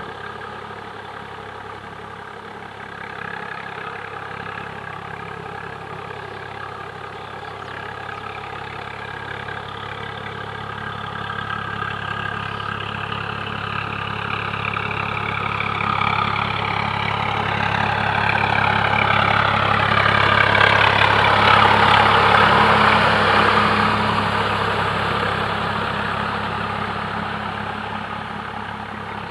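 Swaraj 855 tractor's diesel engine running steadily under load as it pulls a rotavator through a flooded, muddy paddy. It grows louder as the tractor comes closer, is loudest about two-thirds of the way through, then eases off a little.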